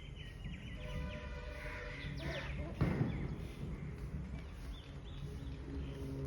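Chickens calling: held, pitched notes at first, then a run of short falling chirps, with one sharp knock about three seconds in.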